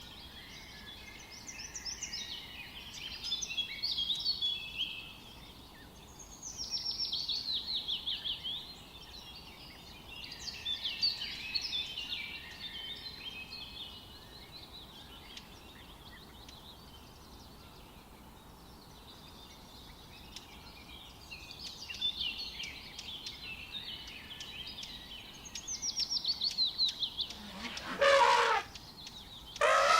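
A songbird singing in repeated phrases of quick, trilled, falling notes, with pauses between phrases. About two seconds before the end comes one loud call that reaches much lower, from deep up to shrill, which fits a wild elephant trumpeting.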